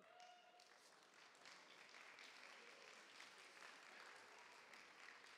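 Faint audience applause that builds over the first second or two and then holds steady, with a short call from the crowd at the very start.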